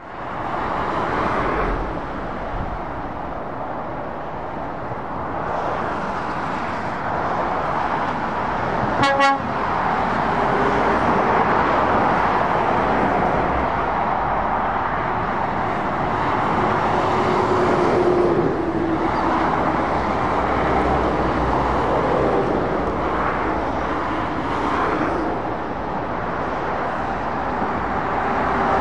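Steady motorway traffic: lorries and cars passing with tyre and engine noise, one heavy vehicle's engine drone falling in pitch as it goes by. About nine seconds in, a vehicle horn gives one brief toot.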